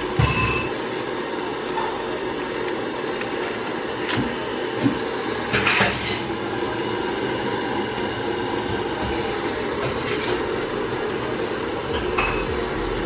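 Kitchen handling noises: a few sharp knocks and clinks of a steel pot and a rustling of a plastic instant-noodle packet, with a longer rustle about six seconds in, over a steady background hum.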